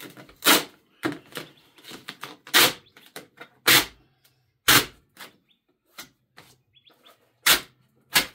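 Hard plastic parts of a cat exercise wheel giving sharp clicks and snaps as they are pried loose, about seven snaps spaced unevenly.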